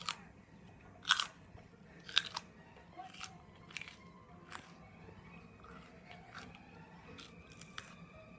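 Crunchy food being bitten and chewed: a series of sharp, irregular crunches, roughly one a second. The loudest come a little after one and two seconds in, and there is a pause before a last few crunches near the end.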